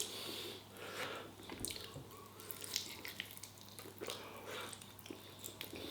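Faint wet chewing and mouth clicks from a man eating chicken wings off the bone, as scattered soft smacks.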